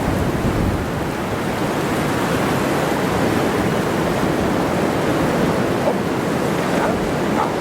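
Strong blizzard wind rushing and buffeting the microphone in a steady noise.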